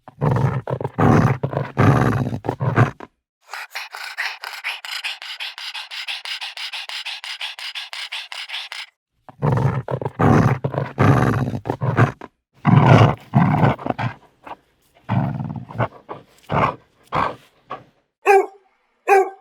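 Dogs growling and snarling in rough, rapid bouts, with a higher rasping snarl in the middle, then separate short barks, the last two higher-pitched.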